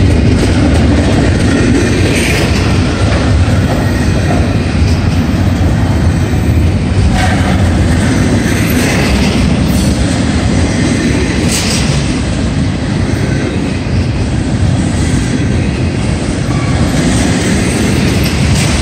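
Double-stack intermodal freight cars rolling past over a grade crossing: a steady rumble of steel wheels on rail with clickety-clack over the joints and a few sharp clanks from the couplings and well cars.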